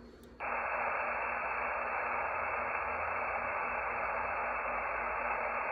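Steady hiss of band noise from the FX-4C SDR HF transceiver's speaker on 20-metre single sideband, starting about half a second in as the rig switches from transmit back to receive. No voice comes through above the hiss.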